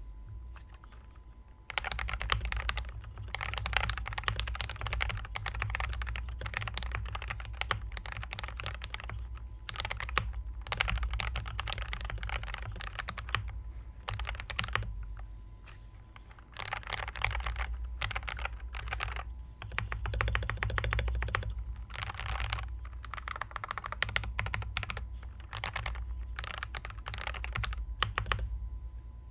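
Typing on a 68-key custom mechanical keyboard with Coral Sea keycaps: fast runs of key clacks in bursts with short pauses between them. The typing starts about two seconds in.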